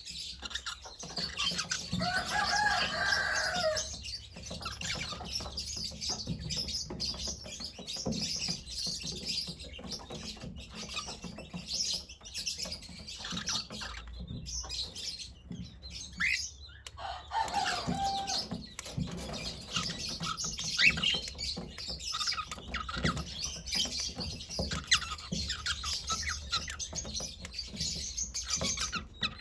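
Pet cockatiel chirping in a steady stream of short high chirps, with two longer pitched calls, one about two seconds in and one past the middle.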